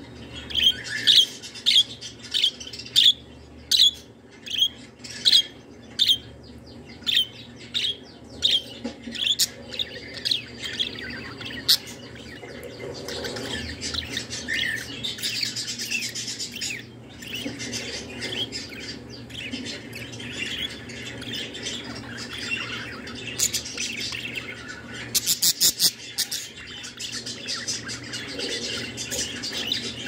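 Female budgerigar singing: first a run of short, sharp chirps about two a second, then from about halfway a continuous chattering song, with a quick burst of clicks near the end.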